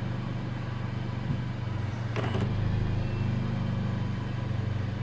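Car engine idling with a steady low hum, and one short click about two seconds in.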